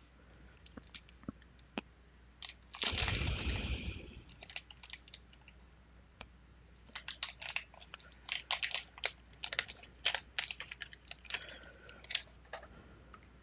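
Paper wrapper of a 1991 Fleer basketball card pack being torn open and crumpled by hand: a loud rustle about three seconds in, then a long run of sharp crinkling crackles.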